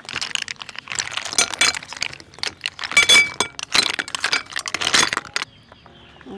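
Cooked snails tipped from a woven basket onto a plate, their shells clattering and clinking against each other and the plate in a dense run of clinks that stops about five seconds in.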